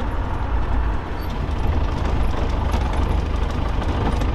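Land Rover safari vehicle driving, a steady low engine and road rumble heard from inside the vehicle.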